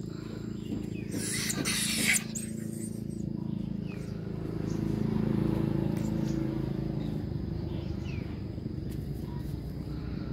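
A dog growling low and steadily while it wrestles in play, getting louder around the middle. About a second in there is a brief, loud scuffling rustle.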